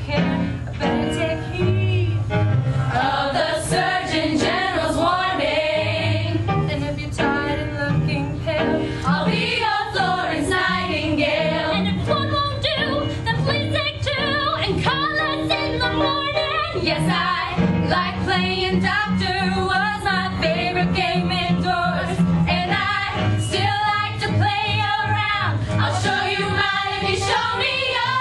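Women's ensemble singing a musical-theatre number over instrumental accompaniment with a steady, repeating bass line.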